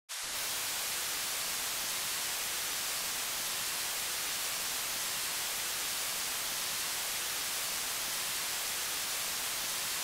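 Steady white-noise static hiss like an untuned television, cutting in suddenly and holding at an even level, strongest in the treble.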